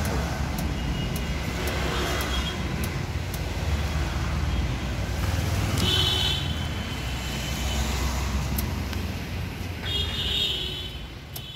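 Street traffic noise: a steady low rumble of vehicle engines and tyres. Two brief high-pitched tones come through, about six seconds in and again near the end.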